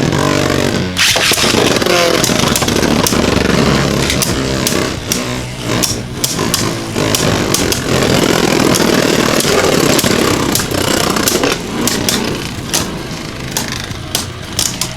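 Two Beyblade Burst spinning tops whirring and grinding against each other in a plastic stadium, with many sharp clicks as they collide. The whir eases and grows quieter over the last few seconds as they lose spin.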